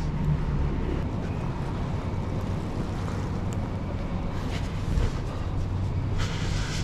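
Urban street ambience: a steady low rumble of road traffic, with a brief louder hiss near the end.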